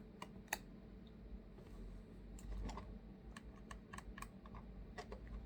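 Faint, scattered small clicks and taps of tiny screws and a cheap precision screwdriver being handled and tried in a MacBook Air's screw holes.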